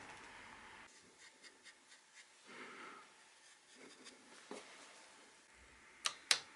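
Faint handling noises: a small plastic packet rustled and tapped, then four sharp clicks close together near the end as a hand tool is worked at a bicycle's seat post clamp.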